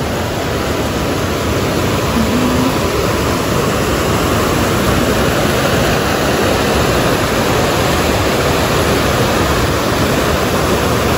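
Fast-flowing rocky stream rushing and cascading over stones: a loud, steady rush of water.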